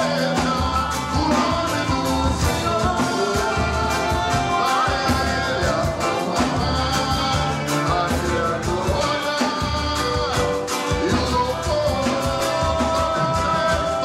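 Live band playing music with drums and a beat, with sung or held vocal lines over it.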